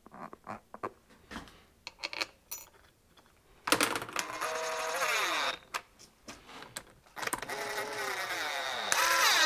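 Cordless drill running bolts into a metal swing-device housing. There are two runs of a couple of seconds each, the first starting about four seconds in, and the motor's whine drops in pitch as each bolt draws down. Small metallic clicks of bolts and lock washers being handled come before and between the runs.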